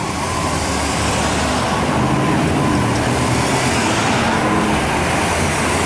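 Steady low traffic and engine rumble, with a departing fire engine's siren rising and falling faintly over and over.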